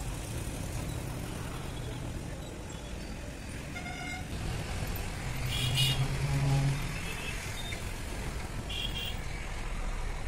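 Steady background road-traffic rumble with a few short vehicle horn toots, the loudest about six seconds in.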